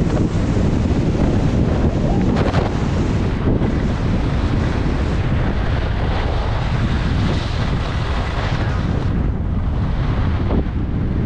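Loud, steady wind buffeting the microphone of a camera carried by a skier going downhill, with the hiss of skis sliding on groomed snow.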